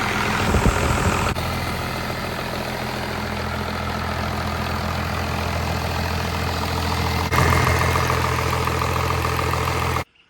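An engine running steadily at idle, cut off abruptly near the end.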